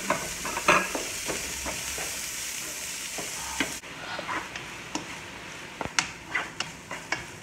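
Ground beef sizzling in hot oil in a nonstick pan while a wooden spatula stirs and breaks it up, scraping and tapping against the pan. A little past halfway the sizzle drops abruptly to a quieter level, and sharp spatula taps stand out.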